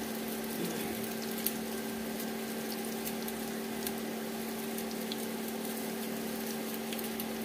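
Egg-coated vegetable chops deep-frying in hot, foaming oil in a kadai: a steady sizzle with scattered small pops and crackles. A steady low hum sits underneath.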